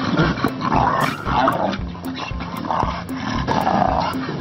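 Growls from a white tiger cub, a white lion cub and a dog play-fighting, coming in short rough bursts, over background music with a steady beat.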